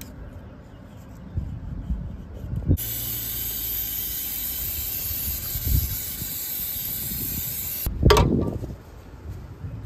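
Aerosol cleaner spray can hissing in one continuous blast of about five seconds, cleaning old sealant off an engine's thermostat housing surface. It starts and stops sharply, after a few light knocks of handling, and a loud thump and rustle follows just after it stops.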